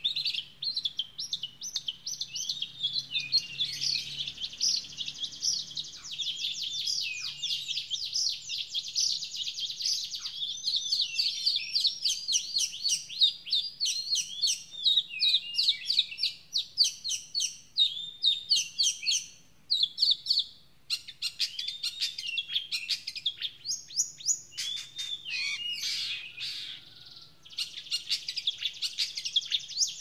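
Long-tailed shrike (cendet) singing nonstop: a fast, varied stream of chattering and warbling notes, broken by two short pauses in the second half.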